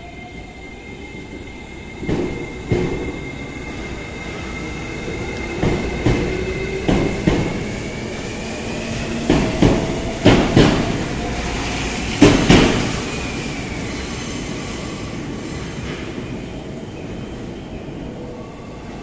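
E491 series East i-E three-car electric inspection train pulling away: its wheels click over rail joints in six pairs, one pair per bogie, coming closer together as it gathers speed, under a whine that rises in pitch. After the last pair, about twelve seconds in, the running sound fades as the train draws away.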